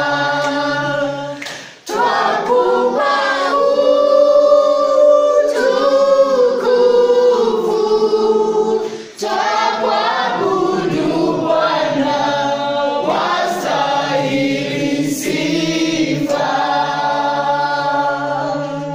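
A children's choir singing a Christian praise song together, unaccompanied, in long held phrases with brief breaks about two seconds in and again about nine seconds in.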